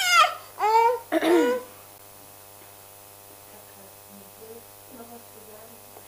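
A baby fussing, with three short high-pitched cries in the first second and a half, then only a low steady mains hum.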